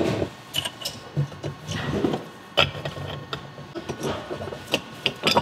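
Irregular metallic clicks, knocks and rattling as a pinion gear and its tapered roller bearing are fitted into a cast-iron differential third-member housing.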